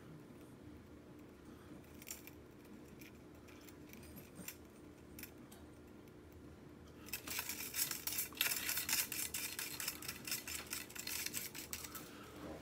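Rapid light jingling and clicking from a cat's wand toy as the cat chases it across a tiled floor. It starts about seven seconds in, after a few scattered clicks, and lasts about five seconds.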